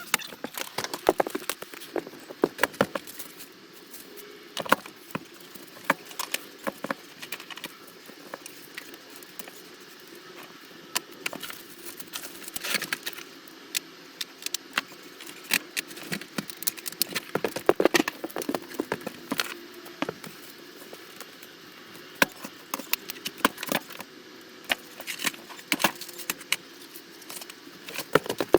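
Irregular clicks, taps and rattles of cables, clips and small fittings being handled and fixed in place, over a faint steady hum.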